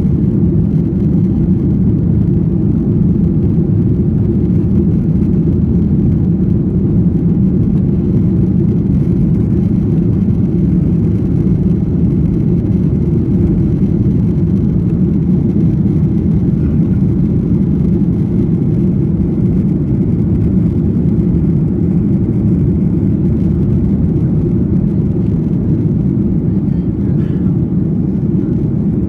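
Jet airliner cabin noise during the climb after takeoff: a loud, steady, low roar of the engines and rushing air, heard from inside the cabin by the window.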